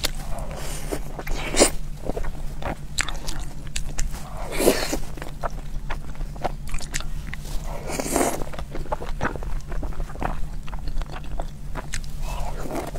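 Close-miked sounds of a person biting into and chewing soft dumplings in chili oil: many small wet mouth clicks, with a few longer, louder moments, over a steady low hum.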